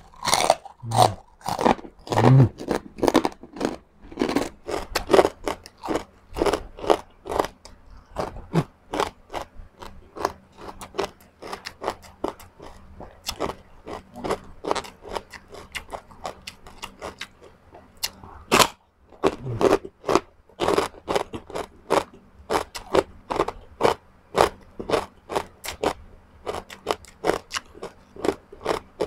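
Crunching and chewing of crispy pork chicharon, bite after bite at a quick, irregular pace, with one especially loud crunch about two-thirds of the way through.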